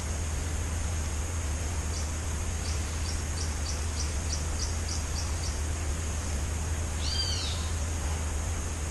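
Birds calling outdoors: a quick run of about ten short high chirps, roughly three a second, then a couple of arched high notes a second and a half later, over a steady low rumble.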